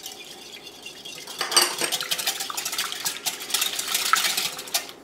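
Metal wire whisk beating egg, milk and oil in a glass bowl, the wires rapidly clicking and scraping against the glass. The clatter grows louder about a second and a half in and stops just before the end.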